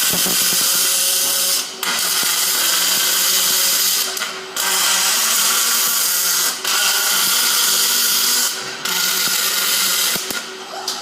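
MIG welding arc crackling steadily, broken by brief pauses about every two seconds as the arc stops and restarts.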